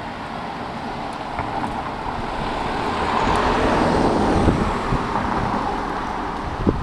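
A road vehicle passing close by: its tyre and engine noise swells to a peak about halfway through and then fades away, with a short knock near the end.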